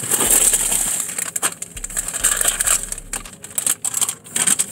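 Paper food wrapper being handled and crumpled close to the microphone, a dense irregular crinkling and crackling.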